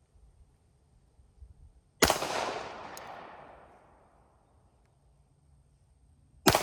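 Two Glock pistol shots about four and a half seconds apart, each a sharp crack followed by a long, fading echo.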